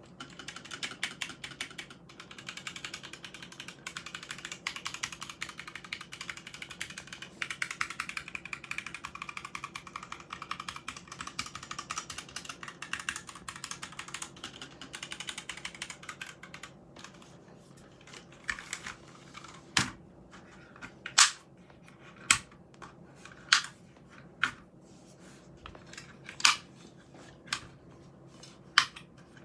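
Typing on a HyperX Alloy Origins 60% mechanical keyboard: fast, continuous key clicks for about the first half, then single, louder key presses about once a second.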